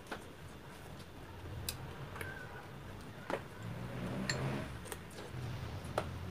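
Metal spoons clicking and scraping against plastic ice cream tubs, with sharp ticks scattered irregularly, about one a second.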